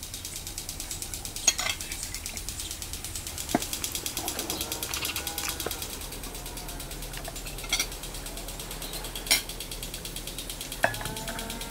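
Insects chirring in a fast, even, high pulse, with a few sharp clinks of forks and tea glasses against plates and saucers.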